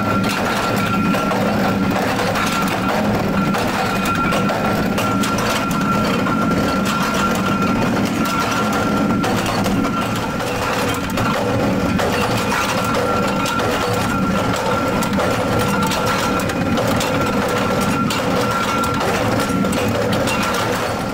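Forging-press machinery running steadily: a dense low rumble with a constant high whine, and faint irregular knocks and clanks throughout.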